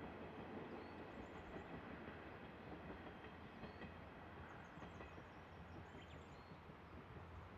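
Distant KiHa 110 series diesel railcars running along the line: a faint rumble that slowly fades. Birds chirp now and then.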